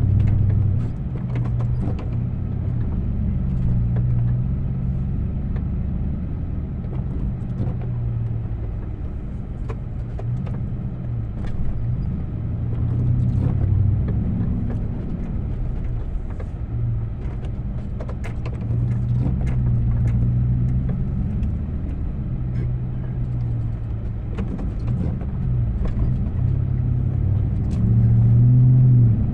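A vehicle engine running steadily under load, its low hum swelling and easing every few seconds, with scattered short clicks and knocks.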